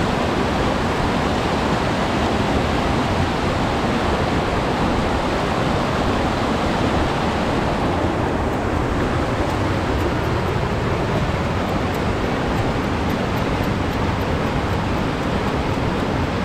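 Rushing water of a mountain stream: a loud, steady, unbroken rush, its hiss thinning slightly about halfway through.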